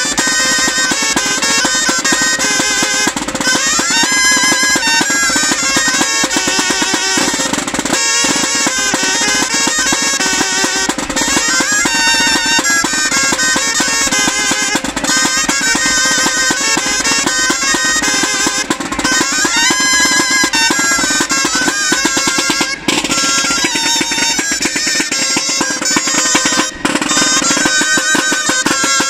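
Band music: drums and snare rolls under nasal reed wind instruments playing a lively melody.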